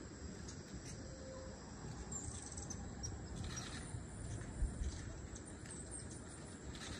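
Forest ambience: a low steady rumble with faint high-pitched chirps and buzzes from small birds or insects, and one dull thump about four and a half seconds in.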